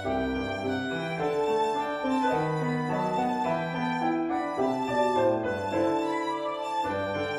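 Solo violin playing a melody of held notes over piano accompaniment.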